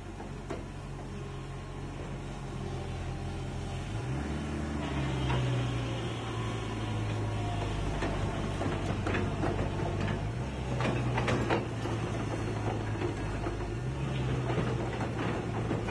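Hitachi ZX135 excavator's diesel engine running under hydraulic load as the boom presses down and lifts the machine onto its tracks. The engine note steps up in pitch a few times, with scattered metallic clanks and creaks that are busiest about two-thirds of the way through.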